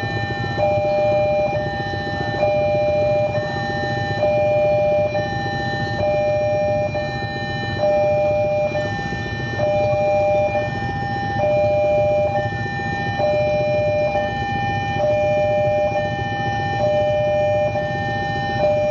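Railway level-crossing warning alarm sounding: a steady electronic tone with a second, lower tone switching on and off about every second, over a low background rumble.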